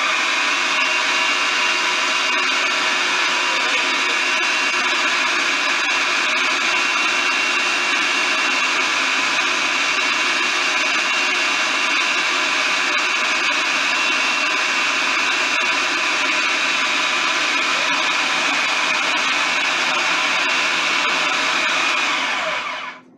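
Electric food processor motor running steadily with a high whine, chopping cooked chicken. It shuts off about a second before the end.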